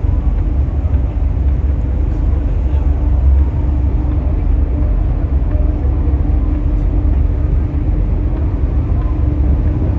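Steady low engine rumble with a constant drone, unbroken throughout.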